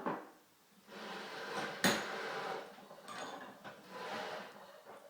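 Metal hand tools scraping and clinking against a rifle cartridge as it is clamped in place, with one sharp metallic click about two seconds in.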